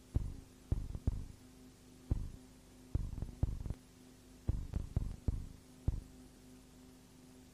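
A steady low hum with a dozen or so short, dull low thumps coming in irregular clusters.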